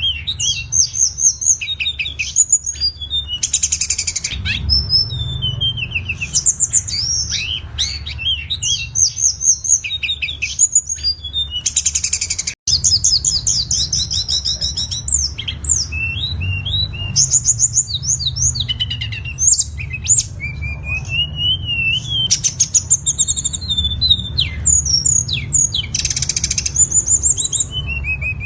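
Tledekan, a blue flycatcher, singing a long, varied song of rapid high whistles, slurred notes and chattering trills. A few dense buzzy trills stand out, and a low background rumble runs under the song.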